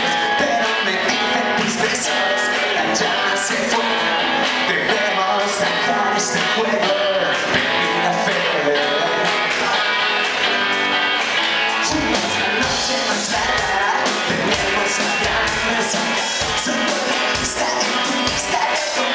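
Live rock band playing electric guitars, bass guitar and drums; the low end grows heavier about twelve seconds in.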